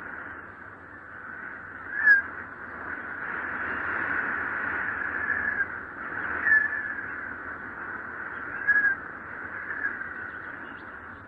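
Wind blowing in gusts with a whistling howl that swells and eases, with sharper whistling peaks about two, six and a half and nine seconds in.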